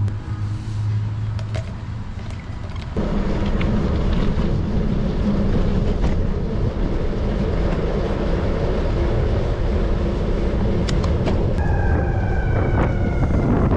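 Wind buffeting the microphone of a camera riding on a moving bicycle: a steady low rumble that grows louder about three seconds in. Near the end a brief, slightly falling horn-like tone sounds over it.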